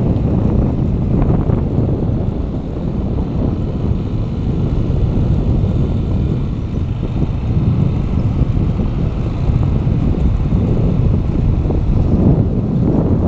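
Wind buffeting the microphone while moving along at riding speed: a steady low rumble that swells and eases.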